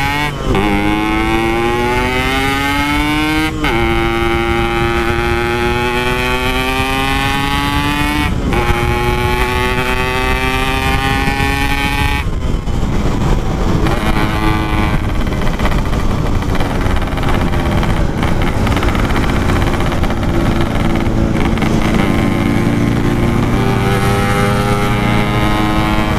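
Two-stroke single-cylinder motorcycle engine, a Yamaha RX-King with a Packing Power aftermarket exhaust, pulling hard through the gears. The pitch rises and drops sharply at each upshift, about 4, 8 and 12 seconds in, then holds steadier before climbing again near the end.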